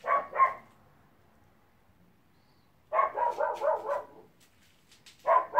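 A dog barking in short bouts: two barks at the start, a quick run of barks about three seconds in, and a couple more near the end.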